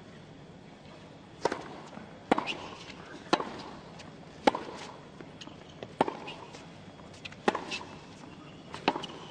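A tennis ball struck back and forth with rackets in a baseline rally: a run of sharp pocks, one every second or so, with fainter ticks between them.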